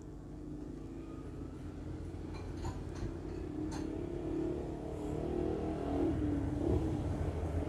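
Engine of a nearby motor vehicle running and growing gradually louder, as if approaching, with a few faint clicks.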